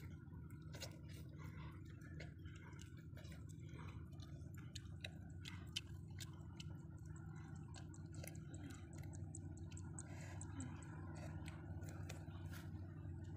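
Faint chewing and lip-smacking of a person eating roasted fish: many small irregular clicks over a steady low hum.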